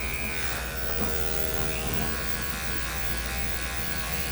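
Electric dog grooming clippers running steadily, a constant motor buzz while clipping the coat.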